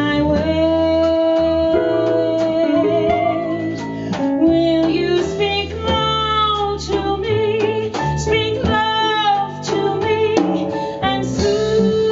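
Female jazz vocalist singing over a live jazz band of piano, guitar, double bass and drums, holding several notes with a wide vibrato.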